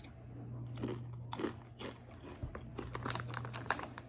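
Dried tomato-flavoured ramen snack noodles being bitten and chewed close to the microphone: a quick run of short crunches and crackles.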